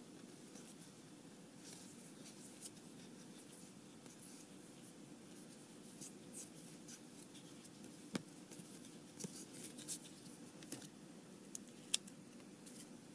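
Trading cards being flipped through and slid across one another, faint scraping and flicking with scattered soft clicks. A few sharper card clicks come in the second half, the sharpest near the end as the stack is squared on the playmat.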